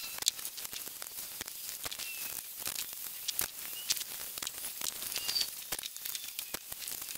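Masking tape being pulled off the roll, torn and pressed along the edge of a truck grille: a run of short crackles and rips.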